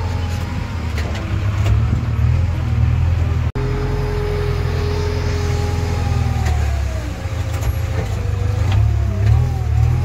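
Diesel engine of a JCB 3DX backhoe loader running under working load, heard from the operator's cab, its note rising and falling as the machine works. The sound cuts out for an instant about three and a half seconds in.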